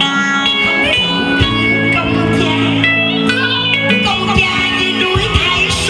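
Live stage music with a guitar playing the melody over long held low chords.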